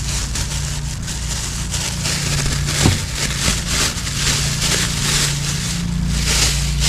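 Crackly, crunching handling noises in repeated short bursts as bamboo shoots are prepared for cutting, over a steady low hum.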